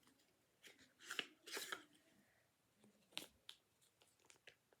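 Faint, scattered rustling and crinkling of packaging as a product box is handled and opened, in short bursts with a few soft clicks.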